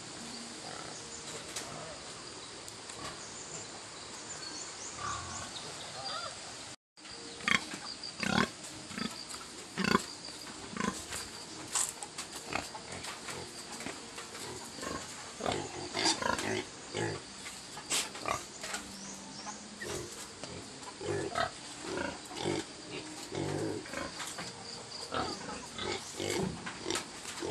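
Pigs grunting and calling, a run of short, irregular sounds from about seven seconds in; before that only a steady background hiss.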